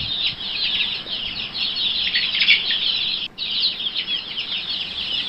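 A flock of chickens calling, a dense, continuous high-pitched chatter of many short overlapping calls, broken off for an instant just past three seconds in.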